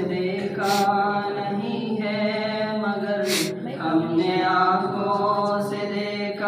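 Naat recitation: a man's voice singing Urdu devotional verses unaccompanied, in long held melodic phrases into a microphone.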